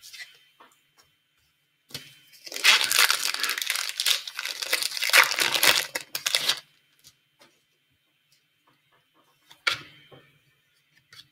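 Foil wrapper of a 2015-16 Upper Deck Series 2 hockey card pack being torn open and crinkled: a dense crackling rustle for about four seconds, starting a couple of seconds in. A short rustle of the cards being handled comes about ten seconds in.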